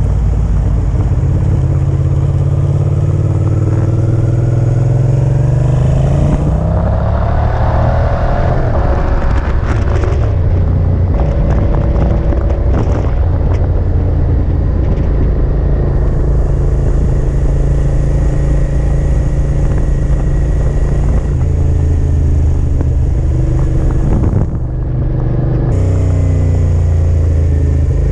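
Motorcycle engine under way, with wind rushing over the microphone. The engine note climbs about six seconds in as the bike accelerates, wind noise takes over through the middle, and the note drops briefly about twenty-five seconds in before rising again near the end.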